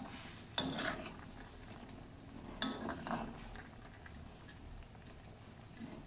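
A metal ladle stirring and scraping chicken pieces in a pan of simmering broth, with a few clinks against the pan about half a second in and near the middle, over faint bubbling.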